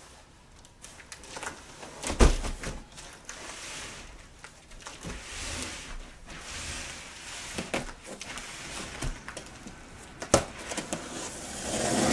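Large cardboard boxes handled and set down on a carpeted floor, with a heavy thump about two seconds in and another shortly after ten seconds, and scraping and rustling of cardboard in between. Near the end a utility knife slices through the packing tape on the box with a rising scratchy rasp.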